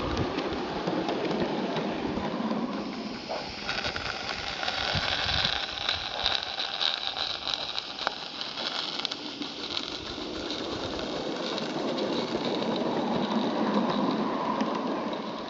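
Live-steam Roundhouse Darjeeling Garratt model locomotive and its carriages running on garden-railway track: a steady rattle of small wheels with many light clicks over the rail joints, and a hiss of steam. It grows louder near the end as the carriages pass close, then falls away.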